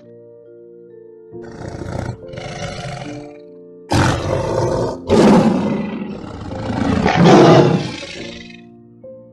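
A big cat roaring: two lighter roars, then three loud, drawn-out roars, over background music.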